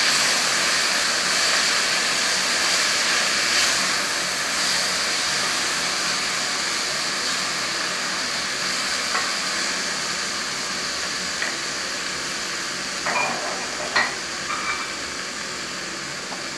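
Chopped tomatoes, onions and spices sizzling in hot oil in a stainless steel pot, a steady hiss that slowly fades, while a wooden spoon stirs. There are a few light knocks on the pot in the second half.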